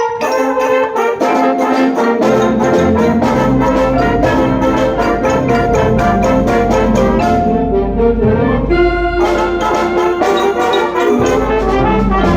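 Loud music led by brass instruments, many quick notes over a low bass line.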